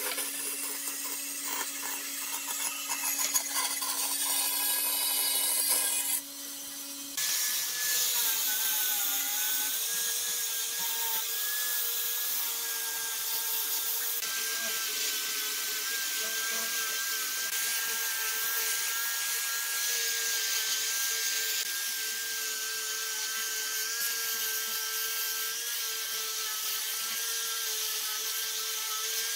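Power tool working wood: a steady motor whine over a rasping, rubbing noise. The sound drops off briefly about six seconds in, then a tool starts again, and its pitch sags for a moment under load a couple of seconds later.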